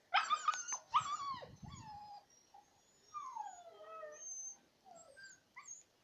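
Siberian husky puppies whimpering and yelping in a string of high cries that slide down in pitch, loudest in the first second and fainter after.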